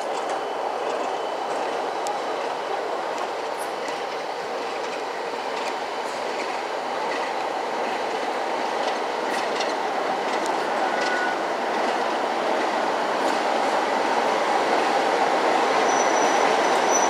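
A diesel passenger train running on jointed track, with wheel clatter and rumble heard through an open window, growing steadily louder as a diesel locomotive on the adjacent line comes alongside near the end, with a faint high squeal.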